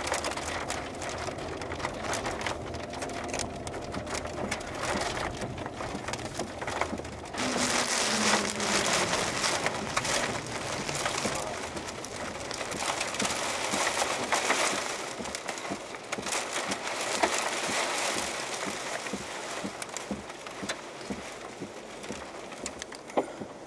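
Heavy rain and wind rushing, with many sharp ticks of drops striking the chase vehicle, swelling and easing in strength.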